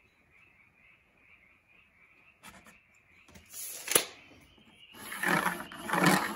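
A steel tape measure retracting with a whir and snapping shut about four seconds in. Then a square is set on the board and a pencil scrapes along it, marking a cut line. Faint rhythmic chirping runs in the background during the quiet first half.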